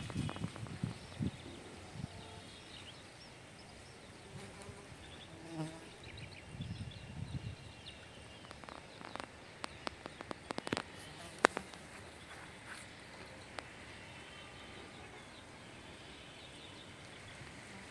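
Rural outdoor ambience of insects buzzing and trilling, with faint chirps and scattered sharp clicks around the middle.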